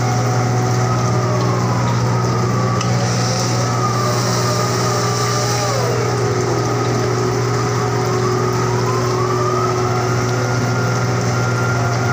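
Heavy diesel machinery of a floating crane running with a steady drone, while a winch whine falls in pitch and rises again as the grab bucket is hoisted and swung. A hiss joins in for a few seconds about three seconds in, as coal is released from the grab.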